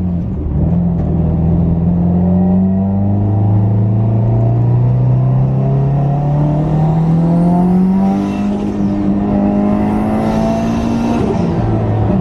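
Turbocharged Subaru WRX flat-four with a straight-pipe exhaust pulling under load. Its pitch climbs slowly and steadily through most of the stretch, dipping briefly just after the start and again near the end.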